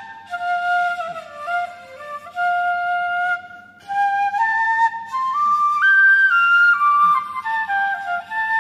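Glass piccolo played solo: a slow melody of held, clear notes that climbs to its highest pitches a little after the middle and then steps back down, with a short breath pause just before halfway.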